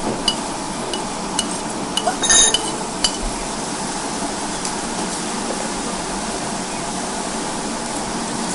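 Meat sizzling on a yakiniku tabletop grill, a steady hiss, with a few sharp clicks and a ringing clink of tableware in the first three seconds.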